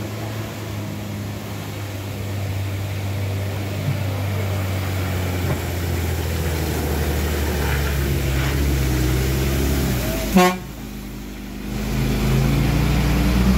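A large diesel bus engine running under load, getting louder as the bus climbs past close by. About ten seconds in there is one short, loud horn blast. After it the engine note drops for about a second, then rises again as the bus pulls alongside.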